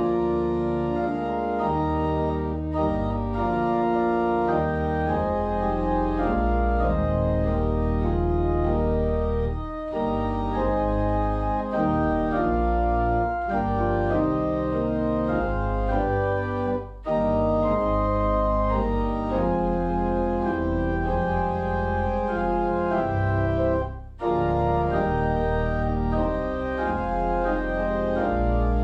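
Church organ playing a slow piece in held, sustained chords, with a few short breaks between phrases.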